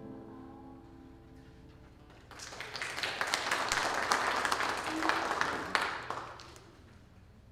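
The band's final chord dies away, then the audience applauds for about four seconds, tapering off.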